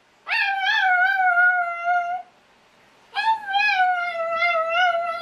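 Chihuahua howling: two long, high howls with a short pause between, each sliding slowly down in pitch with a slight waver.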